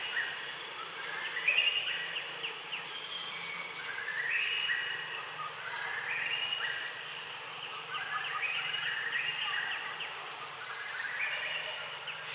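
Tropical forest insect chorus: a steady high-pitched drone, with a pulsing call that rises in steps repeating about every two seconds.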